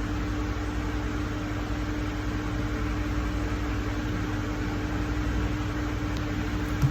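Steady background hum and hiss with one steady low tone, typical of a fan or electrical room noise picked up by the microphone.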